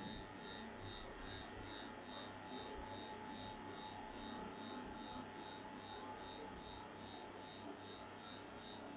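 Faint background hiss from the recording setup, with a faint high-pitched electronic pulsing repeating about three times a second.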